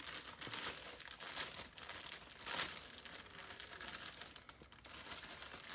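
Gift wrapping being unwrapped by hand: irregular rustling and crinkling of paper, with a few louder crinkles, the loudest about two and a half seconds in.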